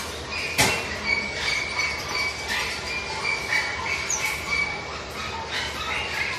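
Caged birds chirping and squawking in many short, high, repeated calls over a busy background hum, with one sharp click about half a second in.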